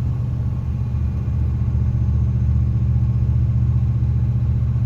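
2001 Dodge Dakota R/T pickup driving, heard from inside the cab: a steady low drivetrain and road rumble with a faint whine over it. The whine is what the owner blames on the transmission with overdrive engaged. It changes with road speed, not engine RPM, and sounds like a failing power steering pump.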